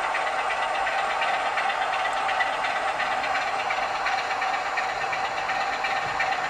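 Sound decoder of an OO gauge Class 47 model diesel locomotive playing a diesel engine idling steadily, heard through the model's small speaker with little bass.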